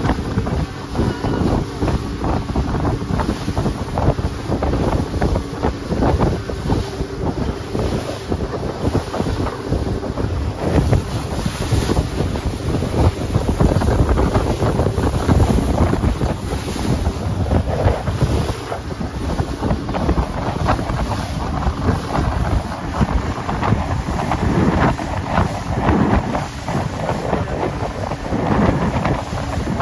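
Wind buffeting the microphone and water rushing and splashing along the hull of a motorboat underway at sea, a steady loud rush that surges and eases.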